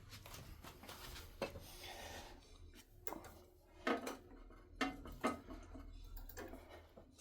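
Metal hand tools clinking and knocking against the motorcycle's rear axle hardware: a handful of separate sharp taps, the loudest about four and five seconds in.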